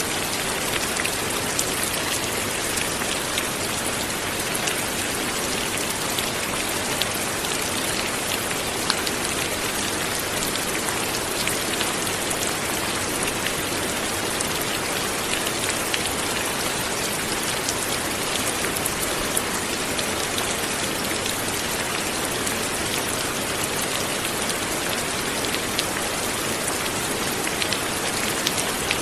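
Light, steady rain falling, an even hiss dotted with the small ticks of individual drops hitting a surface.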